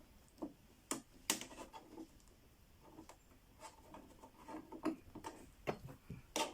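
Sparse light clicks and short scratchy handling sounds as adhesive tape holding the TV's internal plastic bars is worked loose and cut.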